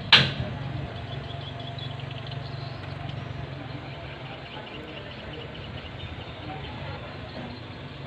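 A single sharp knock right at the start, then a vehicle engine's low steady hum that fades out about three seconds in.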